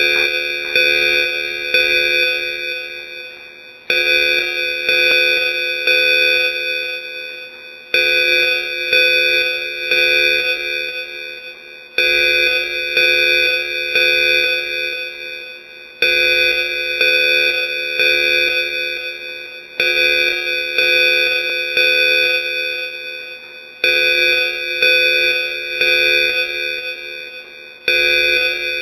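Building evacuation alarm ringing loudly. Its pattern of ringing tones repeats about every four seconds, each round starting sharply and fading before the next one.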